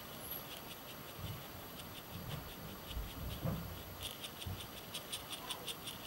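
Faint scratchy ticks of a small round paintbrush making short strokes on card, a quick run of about five a second in the second half, with faint handling bumps before it.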